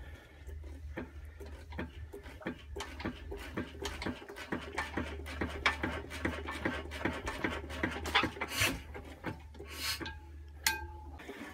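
Antique Imperial Super Diesel single-cylinder hit-and-miss engine being hand-cranked to start: a rapid run of metallic clicks and clanks from the crank and valve gear, thickening to about four or five a second after a couple of seconds as the flywheels spin up, with two short hisses near the end.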